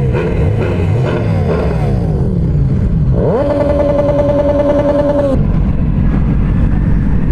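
Motorcycle engines revving up and down through the gears. About three seconds in, one engine revs up quickly and holds a high, steady pitch for about two seconds, then drops back to a steady drone of engines and wind.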